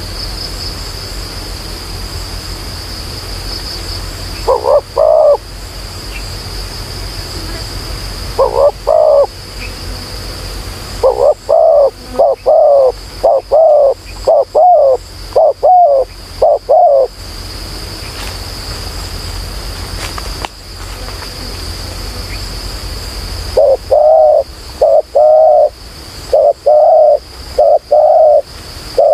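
Spotted doves cooing in loud phrases of deep, wavering notes: two short phrases in the first ten seconds, then a run of about eight quick repeated coos, a pause, and another run near the end. A steady high-pitched insect drone runs underneath.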